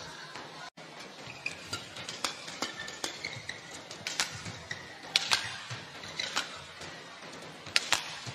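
Badminton rally: rackets striking the shuttlecock with sharp cracks at irregular intervals, a few in quick pairs, with shoes squeaking on the court.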